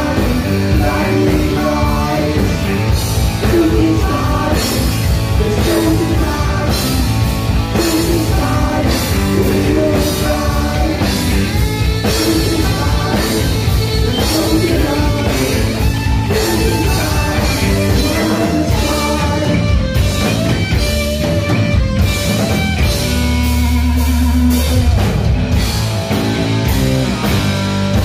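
Heavy metal band playing live: distorted electric guitar and drum kit, with a man singing. A low chord is held for a couple of seconds near the end.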